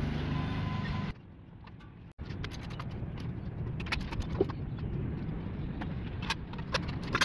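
Light metallic clicks and clinks of aluminium solar-panel mounting rails, clamps and bolts being handled and fitted, scattered irregularly over a steady low outdoor rumble.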